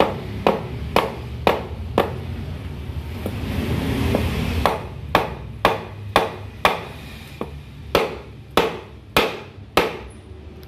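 Hammer blows on a wooden block, driving a needle bearing into its seat in a demolition hammer part, about two blows a second. The blows pause briefly a few seconds in, then resume in a run of about ten before stopping near the end.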